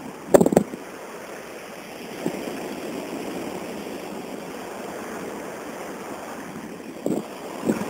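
Steady rushing of surf on a beach, with a sharp knock about half a second in and two short thumps near the end.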